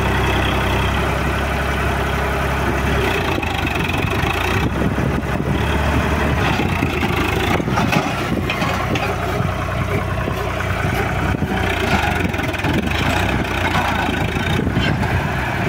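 Swaraj 735 FE tractor's three-cylinder diesel engine running steadily, its note changing about three seconds in and turning rougher after that. The tractor is bogged in mud with a loaded trolley behind it.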